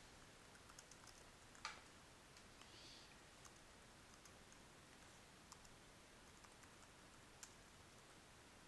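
Faint, scattered computer keyboard key clicks from typing, over near-silent room tone; one click a little under two seconds in is the loudest.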